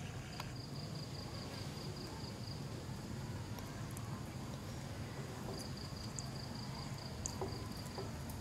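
An insect trilling: a high chirp pulsed about five times a second, in two runs of about two seconds each, over a low steady background rumble.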